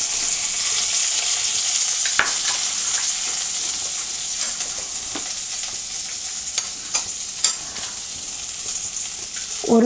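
Butter sizzling as it melts and foams in a hot kadai: a steady hiss that slowly eases off, with a few brief clicks scattered through it.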